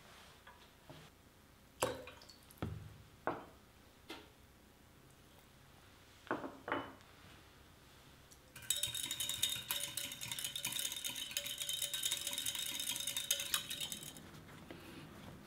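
Liquid seasoning being stirred briskly in a glass measuring jug, with a utensil clinking rapidly against the glass for about five seconds, starting about halfway through. Before that come a few scattered knocks of kitchenware set down on a wooden cutting board.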